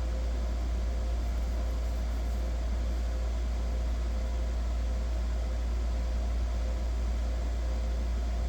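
A steady low-pitched hum with faint hiss underneath, unchanging throughout.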